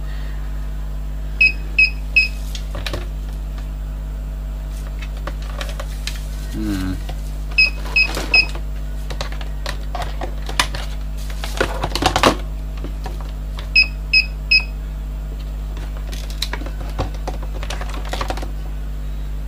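Three short high beeps repeating about every six seconds, typical of a UPS's warning alarm while it runs off its battery, over a steady low hum. Clicks and knocks from a clamp meter being handled and fitted around the wiring, bunched about two-thirds of the way through.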